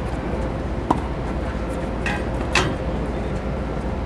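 Tennis balls struck by racquets on a practice court: a few sharp pops, about a second in, at two seconds and the loudest just after, over a steady low outdoor rumble.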